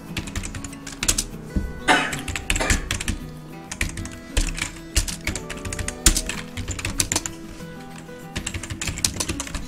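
Computer keyboard typing in quick runs of keystrokes, over steady background music.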